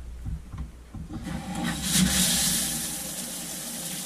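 Water turned on about a second in, rushing through the hose and spraying from a newly installed ANZA handheld shower head, then settling into a steady hiss of spray.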